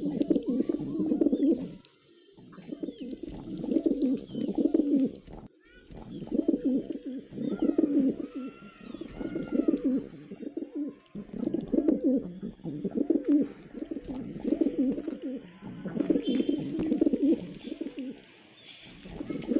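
Pigeons cooing over and over: low, throbbing coos in bouts of about two seconds, one after another with short gaps.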